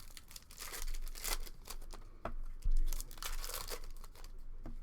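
Irregular crinkling and tearing of plastic-foil trading-card pack wrappers as packs are opened and cards handled, with a louder knock a little past halfway.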